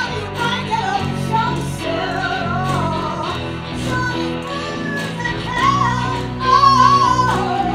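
Live funk-rock band: a woman sings lead with wavering held notes over electric guitar and bass, with a steady beat of short strikes.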